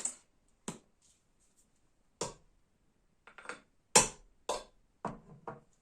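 Handling of objects, probably slime-making supplies being set down, producing about seven short, sharp knocks and clacks at uneven intervals. The loudest knock comes about four seconds in.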